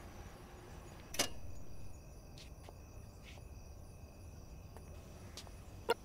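Quiet night ambience with crickets chirping steadily. A sharp click comes about a second in, followed by a brief rustle, and another click comes near the end.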